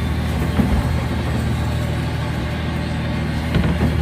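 An engine running steadily with an even low hum, and a couple of short handling knocks, one near the start and one near the end.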